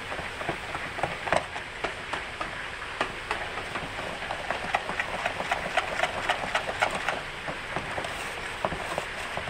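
Pancake batter being stirred by hand in a large plastic tub: a steady hiss with rapid, irregular clicks and taps against the tub, quickest past the middle.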